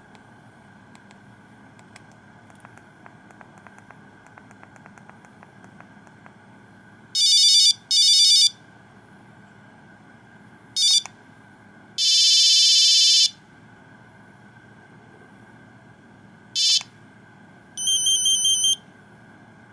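Nokia 2100 mobile phone playing its monophonic ringtones in short, abruptly cut snatches of buzzy electronic beeps: two beeps about seven seconds in, brief tones around eleven and sixteen seconds, a longer tone at about twelve seconds, and a fast trilling tone near the end. Faint clicking in the first few seconds.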